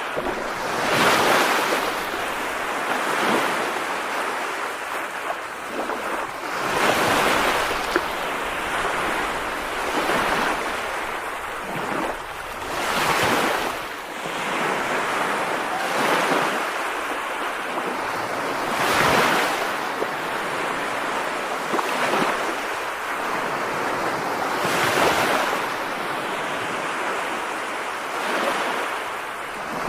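Steady rushing water noise that swells and fades every few seconds.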